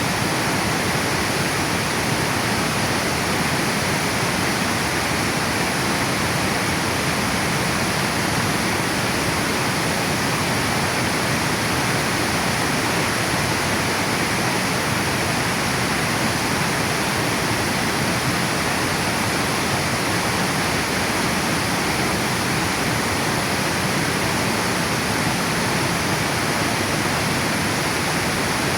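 Water spilling over a river dam and flowing on downstream: a steady, even rush with no change in it.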